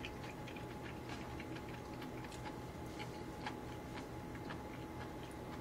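Soft, irregular clicks and mouth sounds of someone eating noodles with chopsticks from a small bowl, over a faint steady hum.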